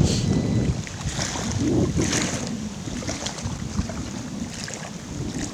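Strong wind buffeting the microphone in uneven gusts, with a few faint clicks and rustles on top.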